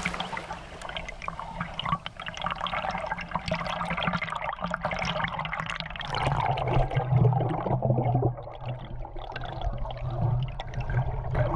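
Sea water sloshing and bubbling, muffled as heard through a submerged phone's microphone, with many small crackles throughout; a low hum comes in about halfway through.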